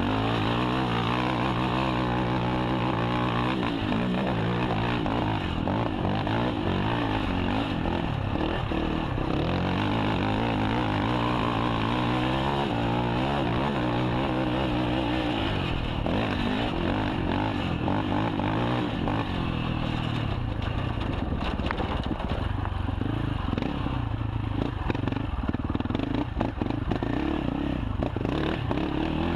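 KTM 450 XC quad's single-cylinder four-stroke engine revving up and down with the throttle under race load. Knocks and clatter join in over the last third.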